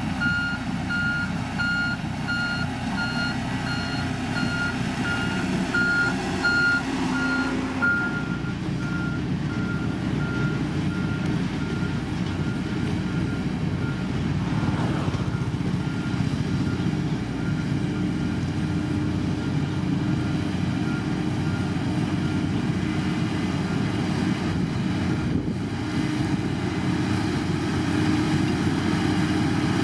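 Heavy road-construction machine running in reverse: its diesel engine rumbles steadily while the reversing alarm beeps about once a second, loud at first and then fainter from about eight seconds in, dying away in the last third.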